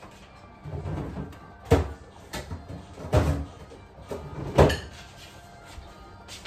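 Three sharp knocks or bangs about a second and a half apart, with a duller low bump just before the first.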